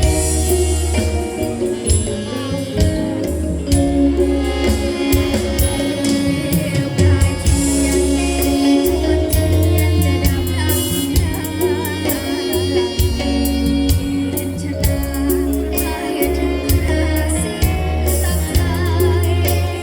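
A song playing: a singing voice over a band with a steady deep bass and frequent percussion strikes.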